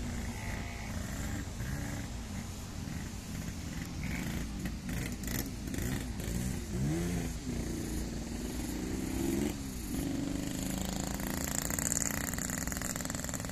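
Steady low engine drone of heavy construction machinery at a rail-laying site. About six to seven seconds in, a few shorter sounds rise and fall in pitch, followed by a steadier tone lasting about two seconds.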